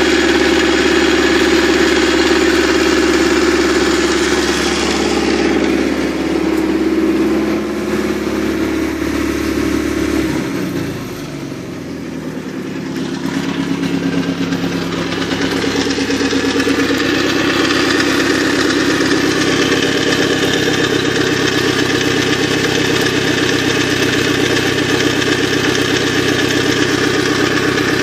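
OMC 3.0 four-cylinder sterndrive engine running steadily at idle, out of the water on its trailer and cooled from a garden hose. The level dips briefly about ten seconds in, then the steady running picks up again.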